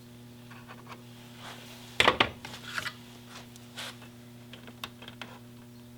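Small metal parts clicking and scraping by hand as a spring and cable end are worked onto a motorcycle throttle cable distribution box, with a sharp cluster of clicks about two seconds in. A steady low hum runs underneath.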